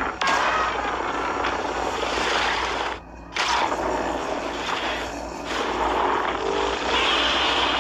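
Godzilla roar sound effect: a long, harsh, rasping roar, broken by a short pause about three seconds in before a second roar.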